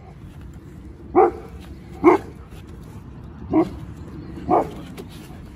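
A malamute barking four times, short single barks about a second apart.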